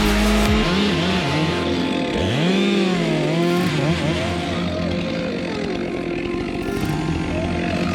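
Two-stroke chainsaw running and cutting wood, its engine pitch swooping up and down as the throttle is worked.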